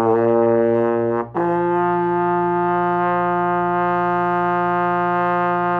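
Tenor trombone playing long held notes: a low B flat, a brief break for a breath, then a second long steady note.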